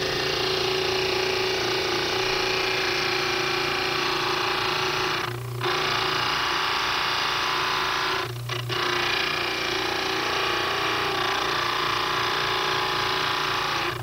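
Dental lab cast grinder (model trimmer) running with water flowing over its wheel, grinding down the edges of hardened dental stone models: a steady, loud grinding over a motor hum. The grinding eases off briefly twice, about five and eight seconds in.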